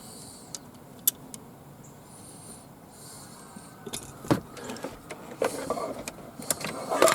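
Small metal screws and a hand tool clicking and clinking, a few isolated ticks at first, then a busier run of sharp clinks and rattles from about four seconds in, as the bracket screws of a car door's window motor are put back in.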